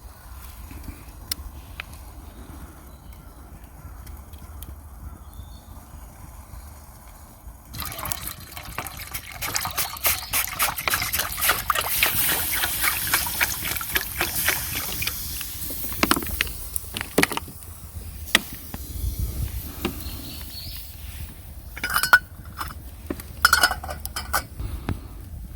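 Water being poured into a pot or kettle, starting abruptly about a third of the way in and running for around eight seconds before tapering off. It is followed by a few separate knocks and clinks.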